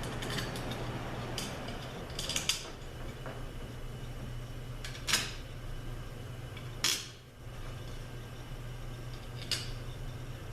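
Small metal parts clinking as bolts are fitted into a 904 transmission valve body: a handful of separate sharp clinks, the loudest about five and seven seconds in, over a steady low hum.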